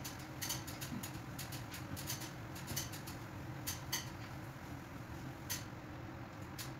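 Irregular light clicks and taps, often two in quick succession, from objects being handled during kitchen cleaning, over a steady low hum.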